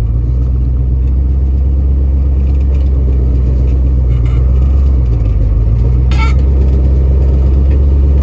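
Old pickup truck running and rolling along, heard from inside the cab as a steady low engine and road rumble. There is a brief high squeak about six seconds in.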